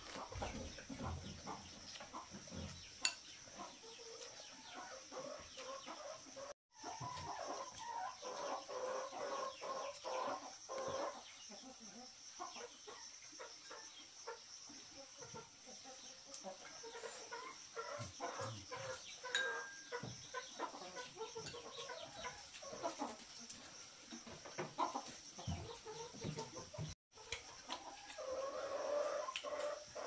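Chickens clucking, a string of short calls, over a steady high-pitched hiss. The sound cuts out for an instant twice.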